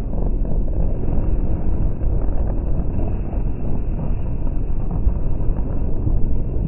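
Muffled street traffic noise, a steady low rumble heavily mixed with wind buffeting the microphone.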